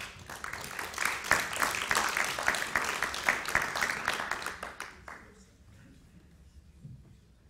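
Audience applauding, starting at once and dying away about five seconds in.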